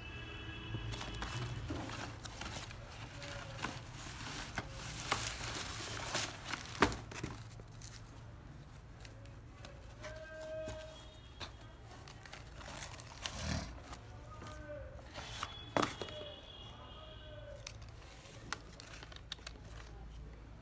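Tissue paper and packaging rustling and crinkling as a shoe is unwrapped from its box, with scattered sharp clicks and taps of cardboard being handled. The rustling is busiest in the first several seconds.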